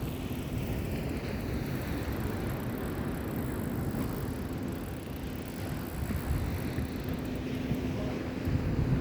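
Wind buffeting the microphone over the wash of surf on the beach, a steady rushing and rumbling noise.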